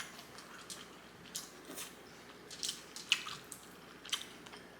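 A person chewing food, with soft wet smacks and squishes from the mouth, about one a second.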